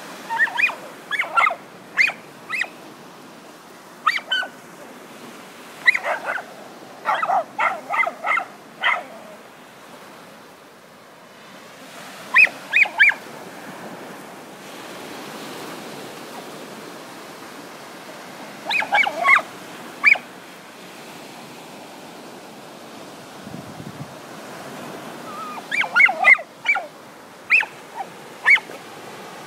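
Dogs yipping and barking excitedly as they dig in sand: short clusters of quick, high yelps, five bursts in all, with surf washing steadily underneath.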